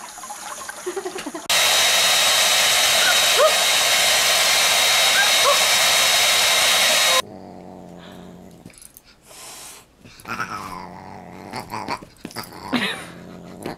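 Running water from a kitchen tap, then a handheld hair dryer switching on about a second and a half in: a loud, steady hiss with a high whine that cuts off suddenly after about six seconds. After it come quieter scuffles and short animal noises of a dog and a cat play-fighting.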